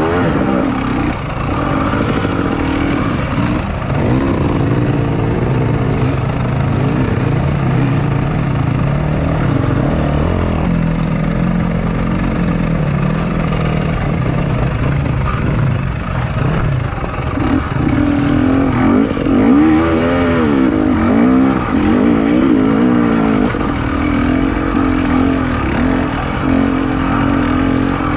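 KTM 250 XC-W two-stroke enduro dirt bike engine being ridden on a trail, the revs rising and falling over and over as the throttle is worked, with a lower, steadier stretch in the middle.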